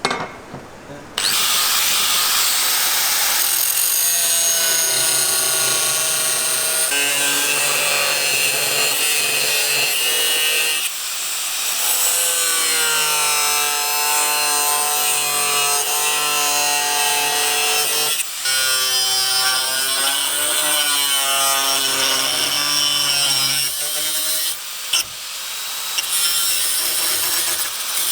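A power tool running under load, a loud grinding noise with a whine whose pitch sags and recovers as it bites. It starts about a second in and breaks off briefly a few times.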